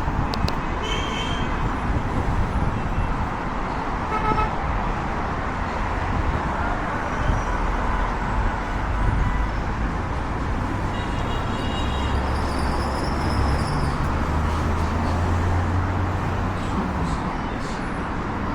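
Busy city street traffic noise, with a few short horn toots from passing vehicles and a low rumble of a vehicle going by near the middle.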